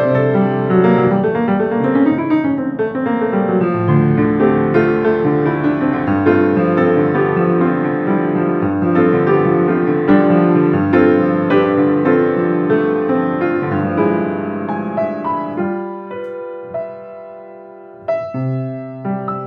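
Solo acoustic piano played with both hands: busy, full chords and running figures, thinning out about sixteen seconds in to a few sparse chords left to ring and fade, with one more chord struck near the end.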